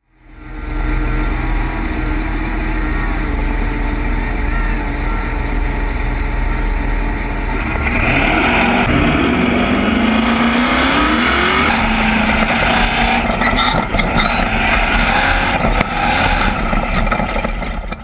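Class 8 off-road race truck running at racing speed over desert dirt, engine and rough-ground noise heard from on board. The sound fades in over the first second, and the engine revs climb about halfway through.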